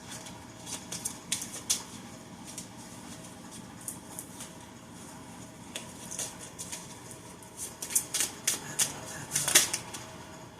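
Oracle cards being handled and flicked through: a run of short, irregular clicks and snaps, busiest near the end.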